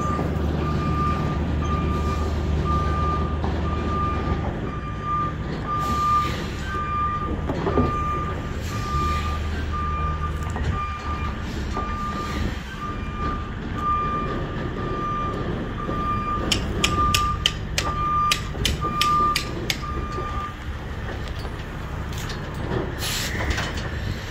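Flatbed tractor-trailer backing up: its reversing alarm beeps about once a second over the steady low running of its diesel engine. A quick run of sharp clicks comes about two-thirds of the way through, and the beeping stops near the end.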